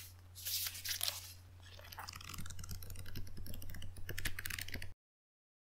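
Two short hissing rushes, then a rapid, irregular patter of clicks and crackles over a steady low hum, all cutting off abruptly near the end.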